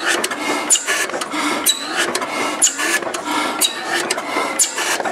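Fetu-Defize slide-valve stationary gas engine running slowly. Its mechanism clicks and clatters in an even cycle of about one beat a second, each beat a sharper clack with a brief high squeak.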